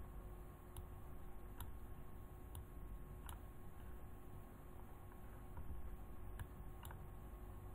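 Faint computer mouse clicks, about six at uneven intervals, over a steady low electrical hum and hiss.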